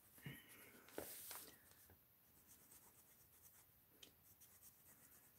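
A black pen scratching faintly on sketchbook paper in a few short shading strokes, with near silence between them.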